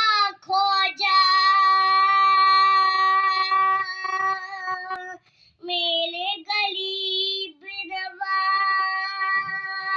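A young boy singing a devotional song in praise of Khwaja Gharib Nawaz, unaccompanied, in long held notes, with a short breath pause about five seconds in.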